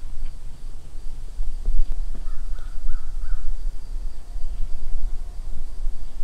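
Woodland ambience: a low fluctuating rumble, a steady high insect buzz, and a short run of bird calls about two seconds in.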